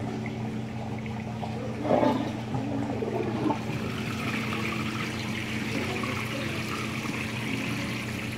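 Water gushing into a model lift lock chamber through the slotted inlets at the foot of its wall, splashing and getting louder from about four seconds in, over a steady hum. A short louder noise comes about two seconds in.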